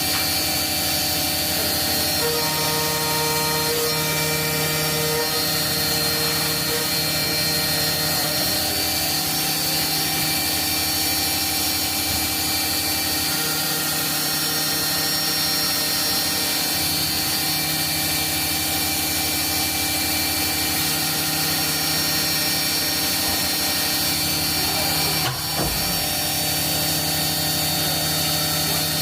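Fadal 4020 CNC vertical mill running, a steady mechanical hum and high whine from its motors and spindle, with some tones fading in and out. There is a brief click about 25 seconds in.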